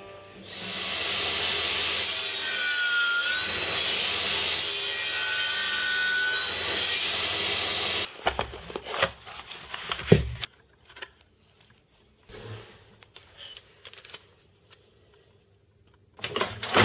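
A power saw running and cutting through wood in two long passes, its blade whistling, then stopping abruptly about eight seconds in. Scattered knocks and clicks of wooden blocks being handled and set down follow, and near the end a hand file rasps against a steel door hinge.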